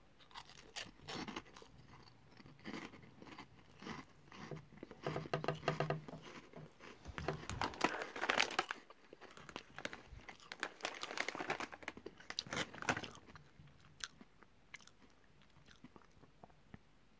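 Close-up crunching and chewing of baked, puffed cheddar-jalapeño snack sticks, a stream of crisp crunches that dies down after about thirteen seconds.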